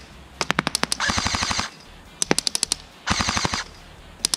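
LCT AK12 airsoft electric rifle fired in two short full-auto bursts. Each burst is answered about a second later by a rapid string of sharp BB hits on the target plate 50 m away, and a third string of hits opens the stretch.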